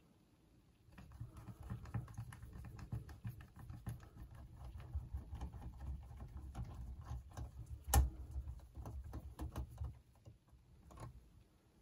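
Faint small clicks, taps and scrapes of a screwdriver working in the plastic cassette deck mechanism of an open boombox, over dull handling knocks, with one sharper click about eight seconds in.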